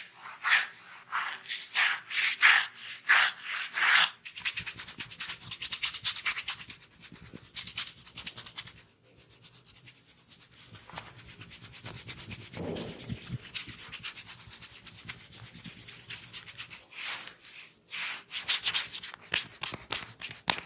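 Hair and scalp being scratched and rubbed for dandruff. It starts with rhythmic strokes about two a second, then a few seconds of rapid, fine scratching, then quieter rubbing, with rhythmic strokes again near the end.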